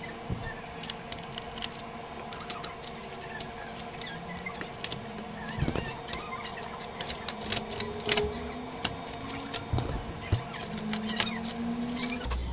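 Irregular light clicks and rattles of the plastic parts of a Sony CDP-CE375 five-disc CD changer being handled during disassembly, over a faint steady hum.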